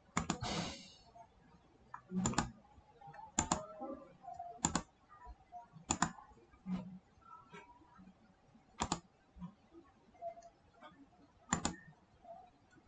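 Computer mouse clicking: about seven sharp clicks at uneven gaps of one to three seconds, most heard as a quick double click.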